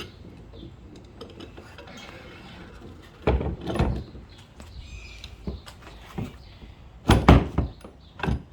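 Wooden knocks and clunks as a 2x4 kayak motor-mount box is handled and set onto the kayak's mounting poles: a cluster of knocks about three seconds in and the loudest ones about seven seconds in.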